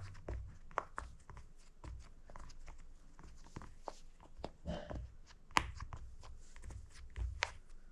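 Bubbles of a silicone pop-it fidget toy being pressed down one after another: an irregular run of soft pops and clicks, several a second, with a few sharper ones.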